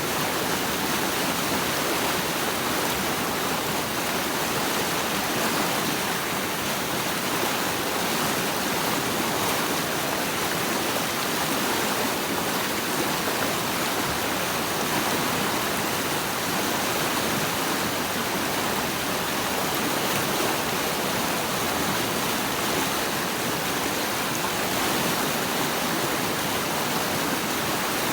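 Running water rushing steadily, an even hiss with no separate splashes or changes.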